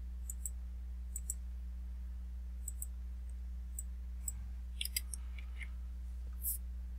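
Computer mouse clicking, about a dozen short clicks, several in quick pairs like double-clicks, with a cluster around the middle, over a steady low electrical hum.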